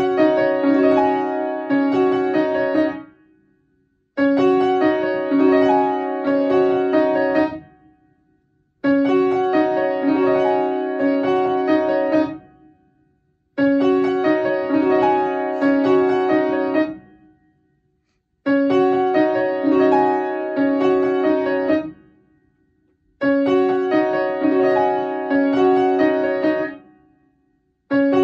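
Upright piano playing a short train-station platform melody: the same phrase of about three and a half seconds repeated about six times, with a pause of roughly a second between each.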